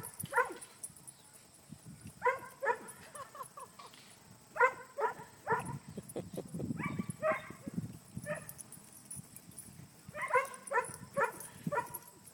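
English Setter barking: short, high-pitched barks in quick bursts of two to five, with pauses of a second or two between bursts.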